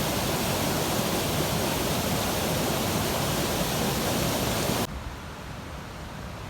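Steady rush of a waterfall's falling water. About five seconds in it cuts off abruptly to a quieter, steady hiss.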